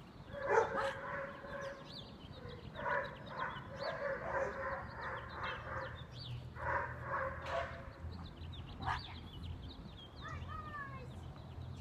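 German shepherd puppy barking and yipping in runs of short high-pitched calls through the first eight seconds, then quieter, with small birds chirping in the background.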